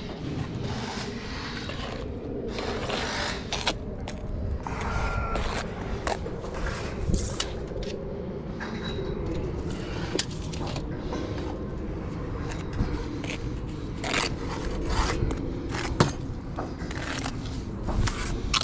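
Steel brick trowel scraping and spreading mortar on a course of bricks, with irregular taps and knocks as bricks are bedded, and one sharp knock near the end.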